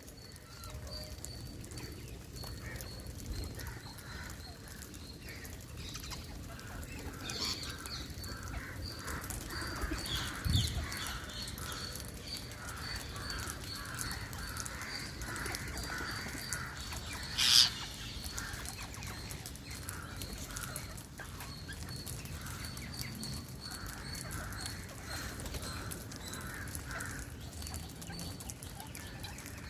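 Birds calling: a high, thin chirp repeats steadily throughout over rows of lower repeated calls, with one loud, harsh call about seventeen seconds in.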